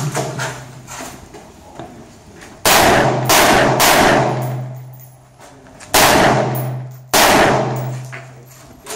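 Scoped rifle fired five times: three quick shots about half a second apart, a pause of about two seconds, then two more about a second apart. Each shot is followed by a long echoing decay under the roof of the covered firing line.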